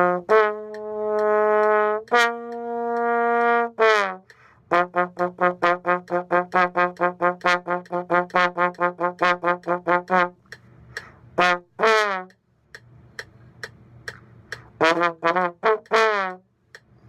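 A solo brass instrument playing: two long held notes, then a fast run of short tongued notes at about four a second, then a few short separate notes with pauses between.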